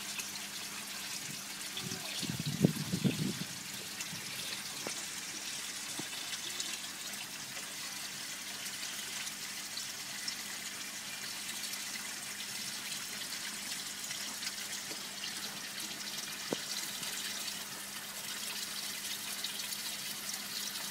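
Steady hiss of water splashing and trickling into a koi holding vat, with a faint low hum underneath. A brief cluster of low thuds about two to three seconds in.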